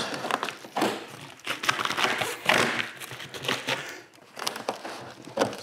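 Flexible corrugated duct hose crinkling and rustling in irregular bursts as it is worked onto the outlet of a portable diesel heater.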